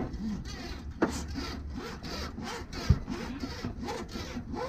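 Windshield-removal wire sawing through the urethane adhesive that bonds the windshield, pulled back and forth in even strokes about two or three times a second. A single thump about three seconds in.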